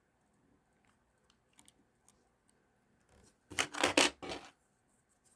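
Small parts of a ratcheting screwdriver being handled and fiddled with: a few faint clicks, then about three and a half seconds in a louder second-long cluster of clicking, scraping handling noise.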